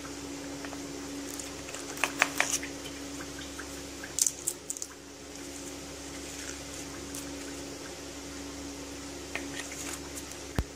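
Steady low background hum, with a few short sharp clicks and crackles about two seconds in, again around four seconds in, and faintly near the end.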